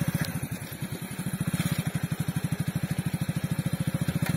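Motorcycle engine running at low revs while the bike is ridden slowly, an even put-put of about nine beats a second that dips briefly about a second in.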